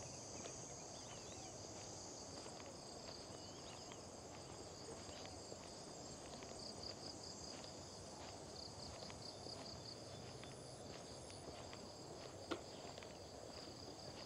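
Insects chirring steadily, a high pulsing trill, over faint footsteps on the trail and one sharp click about twelve seconds in.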